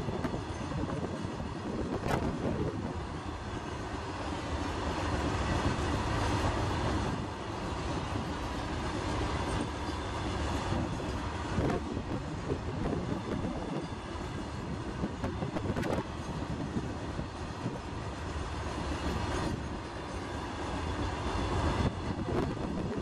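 Freight train of open box wagons rolling past close by: a steady rumble of steel wheels on the rails, with a few sharp clicks and knocks as the wheels run over the track.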